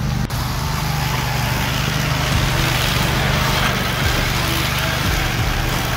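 Walk-behind brush mower's engine running steadily at working speed, with a short click about a third of a second in.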